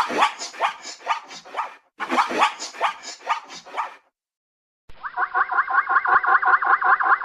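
Zebra whinnies: two bursts of rapid, repeated barking calls, each about two seconds long. After a short pause, a faster run of pulsed calls with a more muffled, narrower sound begins about five seconds in.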